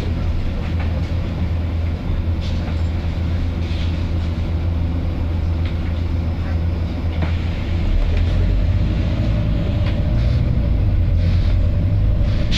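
Stationary Volvo diesel buses idling with a steady low drone that grows louder about eight seconds in. Short hisses of air from the bus's air system come through now and then.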